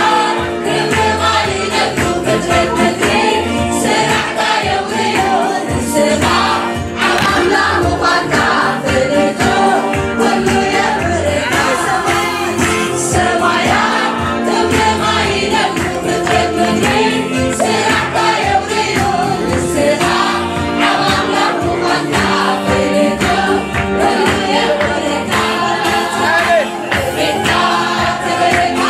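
Gospel choir singing a worship song into microphones, with electric keyboard accompaniment.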